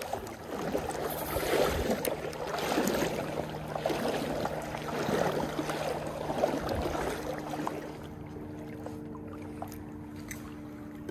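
Stream water rushing and rippling, rising and falling unevenly, mixed with handling noise from a spinning rod and reel. From about eight seconds in the water grows quieter and a steady low hum comes through.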